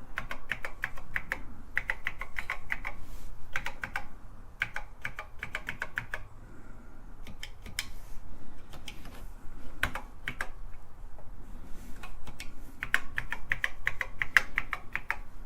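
Keys of a TRS-80 Model I keyboard being pressed one after another in quick runs of clicks, sparser in the middle and dense again near the end: each key being tested to see which ones register.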